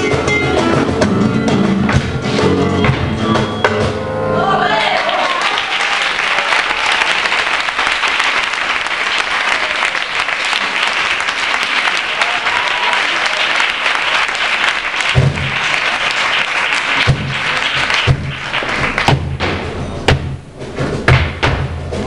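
Live flamenco guitar music that stops about four seconds in, followed by a long round of audience applause and cheering. Near the end the applause thins out into scattered sharp knocks and thumps.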